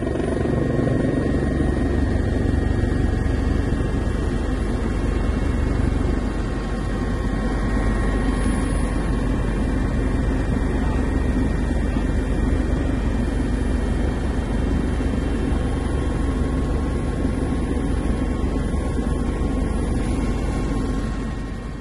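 Steady, loud engine and rotor noise of a helicopter, heard from on board the aircraft.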